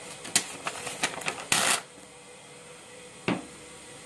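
Paper pages of a tear-off wall calendar being handled and torn off: a run of rustles and small clicks, then one loud rip of paper about a second and a half in, and a last click near the end.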